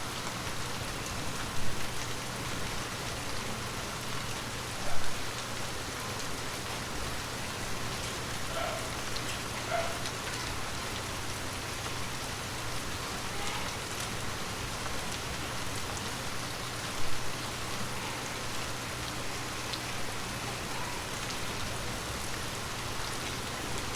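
Light rain falling steadily, an even patter of drops, with a few short louder hits standing out now and then.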